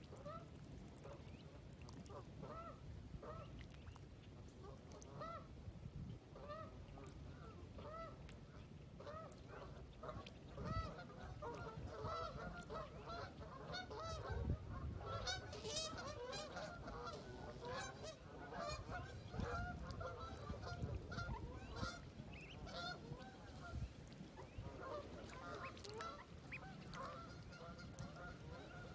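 Mallard hen and ducklings calling: a run of short repeated quacks that grows busier through the middle, with thin high-pitched peeping from the ducklings over that busy stretch.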